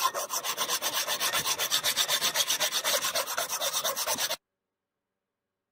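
Metal file rasping along a steel katana blade in rapid, even strokes, about nine a second. The sound cuts off suddenly a little over four seconds in.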